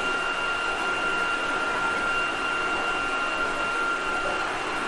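JR Shikoku Series 8000 electric limited express, with Toshiba GTO-VVVF traction control, running at a steady speed. The noise of running carries a steady high whine that holds one pitch throughout.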